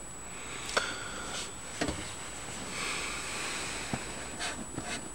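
Handling noise from a small plastic wireless mini keyboard being brought in and set down on a table: a few light knocks and clicks spread through, with some soft rubbing in between.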